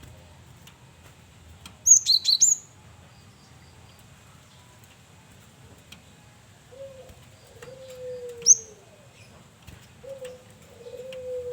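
Male cinereous tit (gelatik batu) calling: a quick burst of several sharp, high notes about two seconds in, then a single high upswept note about eight and a half seconds in. Lower, falling cooing notes repeat from about seven seconds in.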